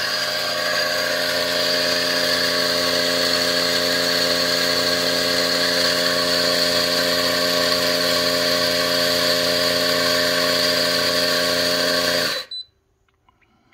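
Fiorenzato electric burr coffee grinder running, grinding espresso beans into a portafilter for a double shot: a steady motor whine that cuts off sharply about twelve seconds in.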